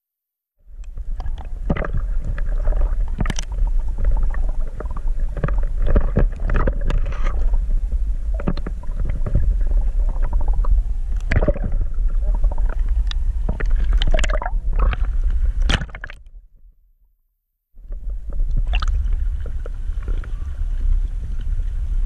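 Muffled sound from an action camera in its waterproof housing underwater: a low rumble with many irregular knocks and clicks as water and line move around it. It fades out about 16 seconds in, and after a second's silence a steady low rumble starts again above the surface.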